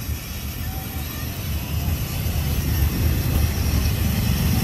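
Engine and road noise of a moving vehicle heard from inside it: a steady low rumble that grows louder about three seconds in.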